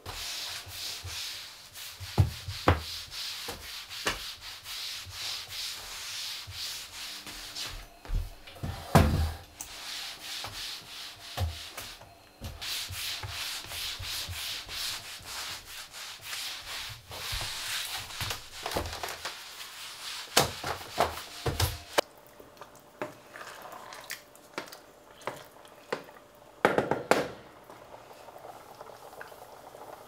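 Scrubbing and wiping strokes rubbing over hard surfaces, with scattered knocks and clunks, the loudest about nine seconds in. After about 22 seconds the rubbing stops and only a few knocks remain, bunched together near the end.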